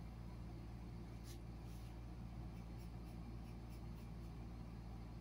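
Faint scraping strokes of a razor blade shaving a bald scalp, the clearest about a second and a half in, over a steady low hum.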